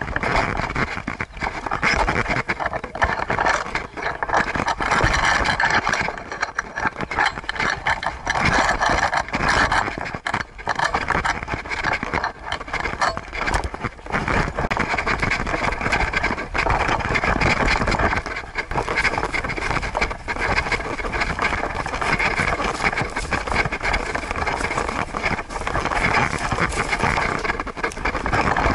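Steady rustling and scraping from an action camera strapped to a Siberian husky's back, its housing and harness rubbing as the dog walks, mixed with wind on the microphone.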